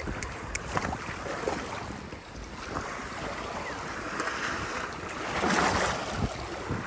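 Small waves lapping and washing on a rocky, pebbly shore, with wind buffeting the microphone; the wash swells louder about five seconds in.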